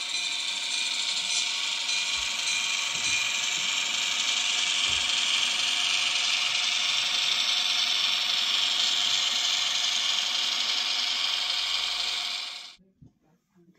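N scale model train running on layout track: a steady mechanical whirring of the locomotive's motor and the wheels on the rails. It cuts off suddenly near the end.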